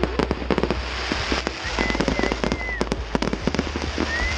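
Aerial fireworks going off in a rapid run of crackling bangs. A thin high whistle is held for about a second midway, and another starts near the end.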